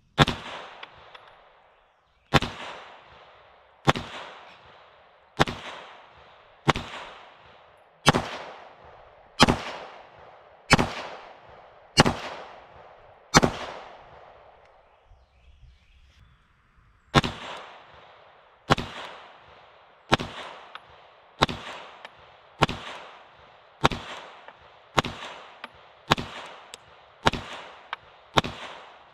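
Twenty 9mm pistol shots fired one at a time, about one every second and a quarter, in two strings of ten with a pause of about four seconds between them. Each shot echoes and fades.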